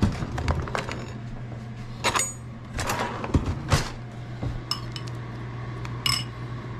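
A metal ladle and spoon knocking and clinking against a stainless pot and a ceramic bowl as soup is served, in scattered knocks with two bright, ringing clinks near the end. A steady low hum runs underneath.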